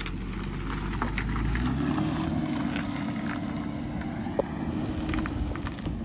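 Car engine running, its pitch rising about two seconds in and then holding steady, with scattered light clicks.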